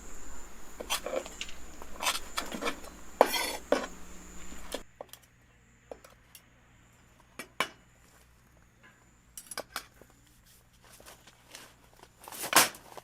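Irregular clinks and knocks of cookware and cutlery being handled, with a louder knock near the end.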